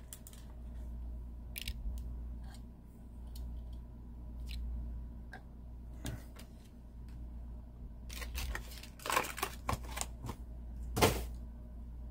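Scattered clicks and taps of small diecast cars and plastic packaging being handled, with a quick run of clicks near the end and one sharper click just after. A steady low hum runs underneath.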